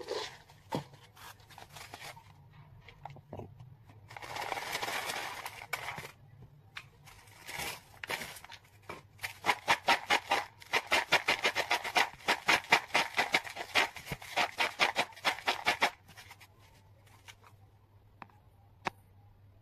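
Dry fried snacks, sweet boondi and Bikaner namkeen mixture, rattling in a foam bowl as it is shaken by hand to mix them: a fast run of sharp dry clicks from about nine seconds in, stopping about sixteen seconds in. Earlier, about four seconds in, a rustle of about two seconds as the mixture goes into the bowl.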